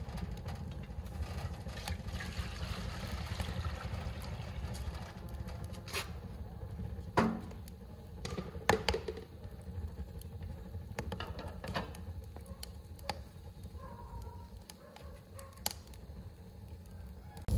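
Wood fire burning in a sheet-metal stove: a few sharp, irregular crackles and pops over a low, steady rumble.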